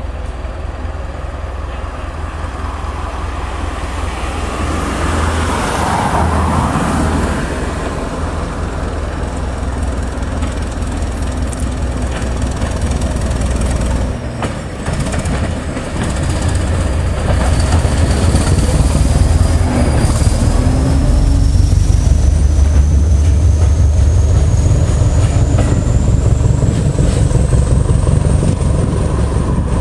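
Class 205 'Thumper' diesel-electric multiple unit's English Electric four-cylinder diesel engine working hard as the unit pulls away, a heavy low throb with wheel-on-rail noise. A thin high whine rises slowly in pitch through the second half as the sound grows louder.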